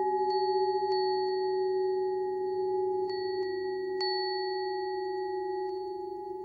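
Minimalist electronic drone music: several pure, sine-like tones held at once at different pitches, the lowest with a slow pulsing, some tones dropping out or shifting a step in pitch along the way, with faint clicks scattered through it.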